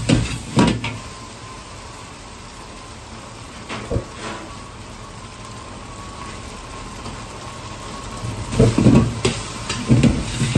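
A metal ladle clanks and scrapes against a steel wok of fried rice: a few sharp knocks at the start and one about four seconds in, then busier stirring and tossing from near the end. Between them a steady hiss comes from the wok's gas burner.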